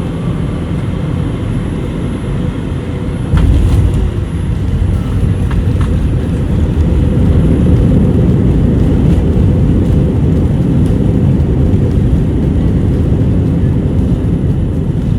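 Airliner cabin noise during landing: a sudden thud about three seconds in as the wheels touch down, followed by a heavier, louder rumble as the plane rolls down the runway.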